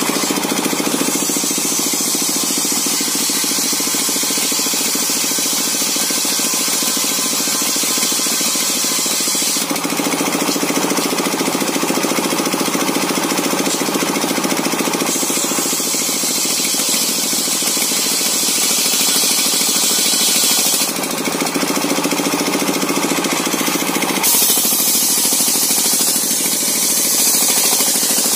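Engine-driven circular sawmill running continuously, its blade sawing coconut wood into beams. The engine's fast steady knock runs underneath, while the higher hiss of the cut strengthens and fades several times as the wood is fed through.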